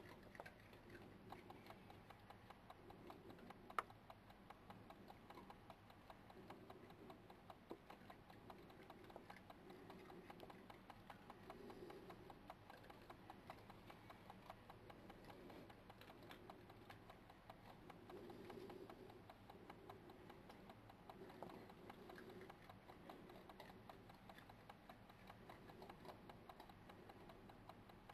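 Badgers and foxes feeding on scattered food, heard faintly as a rapid, continuous run of small crisp crunching clicks from chewing, with one sharper click about four seconds in.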